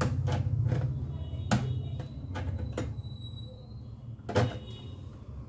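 Pliers working a tight laptop hinge loose: scattered clicks and knocks of the tool on the hinge over a low handling rumble. The two loudest knocks come about a second and a half in and a little after four seconds.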